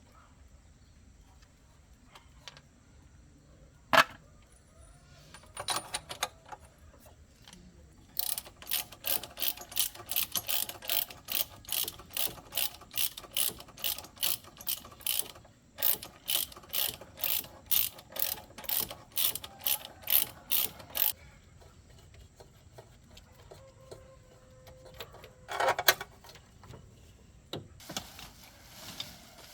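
A hand tool worked in quick, even strokes, about three a second, in two runs with a short break between them. A sharp metallic click comes before the strokes and a clatter after them.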